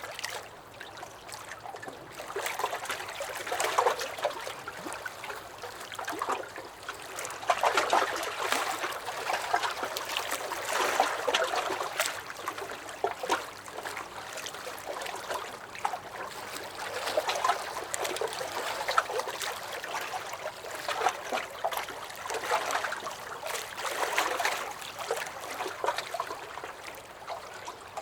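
Small lake waves lapping and splashing against a dock, coming in irregular swells every few seconds.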